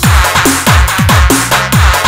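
Loud electronic breakbeat dance music from a DJ mix: a fast beat of deep bass drum hits that each slide down in pitch, under a steady held note and bright hi-hats.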